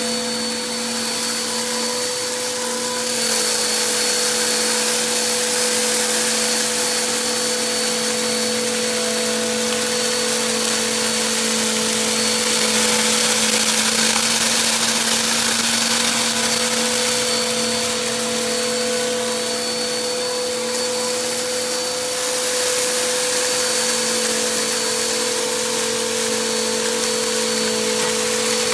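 Shark vacuum cleaner running steadily with a high motor whine over the rush of suction, vacuuming up a spread of fine and crunchy dirt. It gets louder about three seconds in and eases off briefly about two-thirds of the way through.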